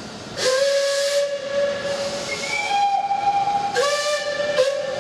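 Steam whistle of a small Bagnall 0-4-0 saddle-tank locomotive. It gives one long blast about half a second in, with a higher whistle tone overlapping its end. A second blast follows near the end, briefly broken. Each blast opens with a rush of steam hiss.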